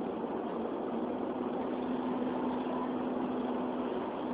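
Car cabin noise at motorway cruising speed: steady road and tyre noise with an engine hum that comes in about a second in and holds steady.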